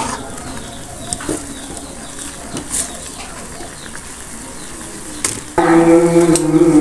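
A metal spoon clinks a few times against an aluminium saucepan while it stirs instant noodles. Background music starts suddenly about five and a half seconds in.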